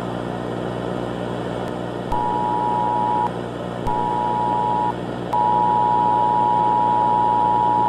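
Emergency broadcast alert tone: a steady high single-pitched beep over a background of hiss and buzzing hum. It sounds twice for about a second each, then holds as one long continuous tone from about five seconds in.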